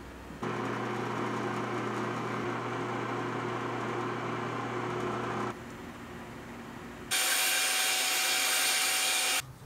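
A workshop power tool's motor runs steadily for about five seconds. After a short lull a small wet/dry shop vacuum runs, a loud even rush with a thin high whine, and cuts off suddenly about two seconds later.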